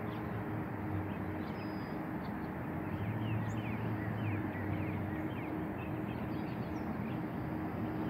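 Steady rush of road traffic with a low hum that swells about three seconds in, while small birds chirp repeatedly in short, quick notes; the church bells are silent between tunes.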